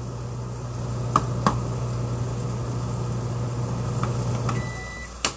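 Microwave oven running with a steady hum that cuts off about four and a half seconds in, followed at once by a short end-of-cycle beep: the cook time is done. A couple of light knocks come early, and a sharp click comes just after the beep.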